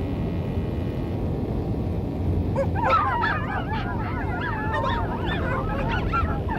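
A troop of monkeys chattering, many short rising-and-falling calls overlapping, starting about two seconds in, over a steady low rumble.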